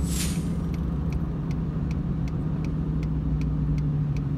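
Steady car engine and road noise heard from inside the cabin, with the turn-signal blinker ticking evenly about three times a second as the car prepares to turn.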